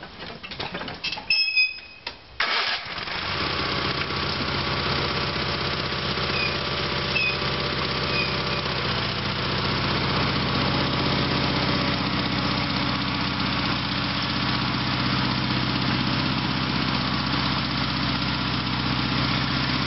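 Sears SS/16 garden tractor's Onan twin-cylinder engine cranked and catching after about two and a half seconds, then running steadily as the tractor drives off.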